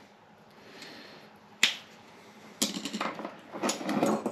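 Hands handling a brass air fitting, thread-seal tape and the inflator body, making small sharp clicks and rustling. One click comes about one and a half seconds in, then a cluster of clicks and rustling in the second half.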